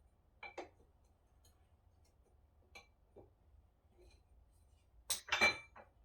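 Steel hand tools and machine parts clinking: two light clinks about half a second in, a couple more near the middle, and a louder cluster of clinks and rattles about five seconds in.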